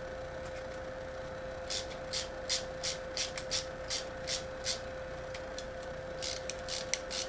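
Hand screwdriver turning a small screw into a tight hole in a metal bracket, the screw cutting its own threads: a run of short scraping clicks, two or three a second, starting a little under two seconds in and pausing briefly before the end. A steady faint hum lies underneath.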